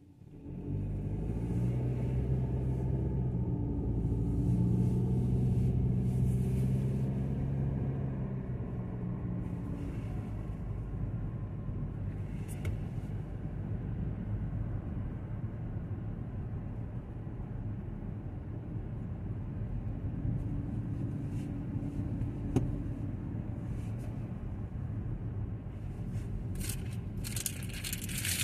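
Kia Seltos heard from inside the cabin, pulling away from a stop: the engine note climbs for several seconds, then settles into steady engine and tyre noise while cruising. A hiss grows louder near the end.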